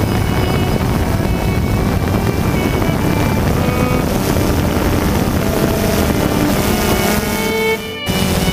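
DJI Phantom 2 quadcopter's brushless motors and propellers buzzing steadily, with several whine tones that shift in pitch, heard close up from the GoPro mounted on the drone. The sound dips and drops out briefly near the end.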